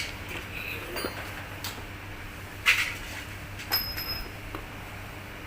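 A few light clicks and clinks of small tools and parts being handled during a bench repair of a car's instrument cluster, about one a second, the loudest about two and a half seconds in, one followed by a brief faint ring, over a steady low hum.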